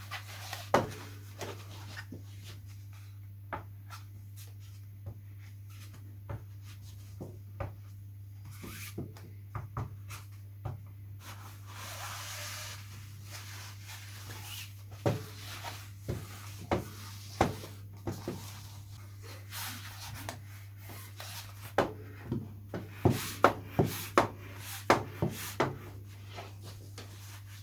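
Handling covering fabric on a balsa model-glider wing: scattered sharp taps and clicks, a short rustle about twelve seconds in and a quicker run of taps near the end, over a steady low hum.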